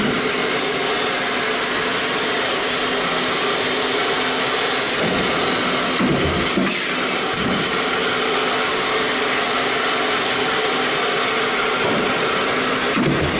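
Stamping press running a progressive deep-drawing die: a steady mechanical din with a few irregular low knocks.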